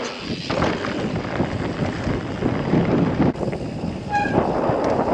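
Mountain e-bike ridden fast down a dirt trail: wind on the microphone with steady tyre and trail rattle. A short high-pitched squeal comes about four seconds in.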